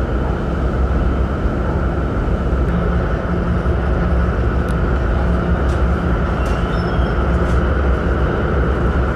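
Ferry's diesel engines running, a loud, steady low rumble with a faint regular pulsing beat, heard from aboard the vessel.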